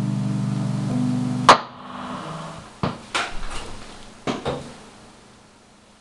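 Electric guitar's final chord ringing out, choked off about a second and a half in by a sharp loud knock. A handful of knocks and clunks follow as the guitar is handled and the player gets up from his stool.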